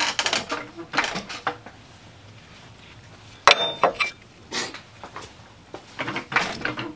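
Light metal clinks and knocks of tools and parts being handled, with one sharper clink that rings briefly about three and a half seconds in.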